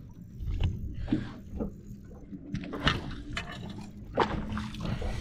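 Irregular knocks and bumps of handling aboard a fishing boat, over a low rumble with a faint steady hum in the middle.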